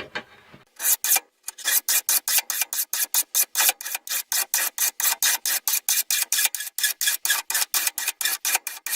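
Metal hand file rasping along the steel edge of a lawn mower blade to sharpen it. The strokes are quick and even, about five a second, starting just under a second in.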